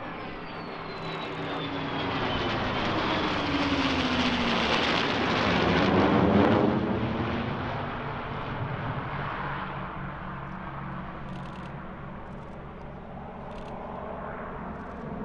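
Formation flyover of an F-16 fighter jet with two propeller warbirds: a dense engine roar swells to a peak about six seconds in, its pitch falling as the aircraft pass, then fades. A steady low propeller-engine drone runs beneath it.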